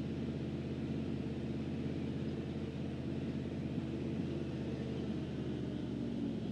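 1976 Chevy C65 log truck's engine running steadily while its hydraulic log loader is worked by hand levers.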